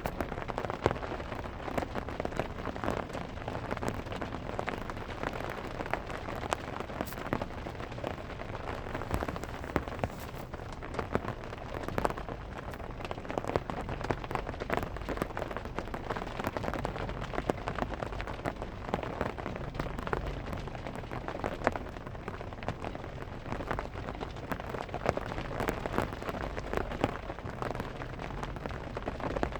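Rain drumming steadily on a car's metal roof, a dense patter of individual drop hits over a continuous hiss.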